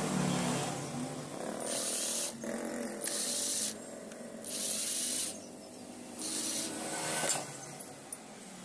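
Cordless drill-driver running in about five short bursts, each under a second, as it backs out the screws holding a lever bracket on an old electric hand planer.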